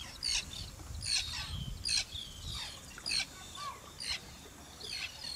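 A small bird chirping: short, high, falling chirps repeated irregularly about two to three times a second.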